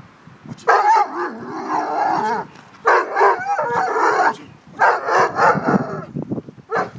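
A large black-and-tan dog on a leash barking in three long bouts, each lasting a second or more, with a short burst near the end.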